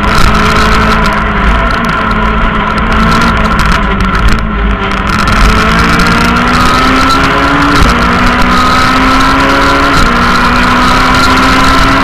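Rally car engine heard from inside the cabin, pulling hard under full throttle. It eases off briefly about four seconds in. Then it climbs in pitch and drops sharply twice, near the end, as the driver shifts up.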